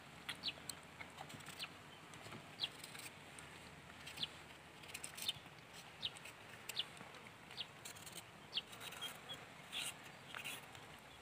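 Faint background with scattered short, high bird chirps, roughly one every second.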